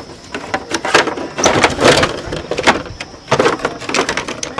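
Irregular clicks, knocks and rattles of parts being handled at a motorbike's front end during a repair, with no engine running.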